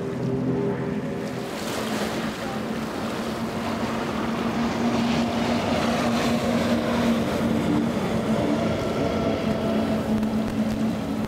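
Multi-outboard center-console boats running at high speed, a steady engine drone over the rush of spray and wind. The engine note changes pitch about a second and a half in, then holds a lower steady tone.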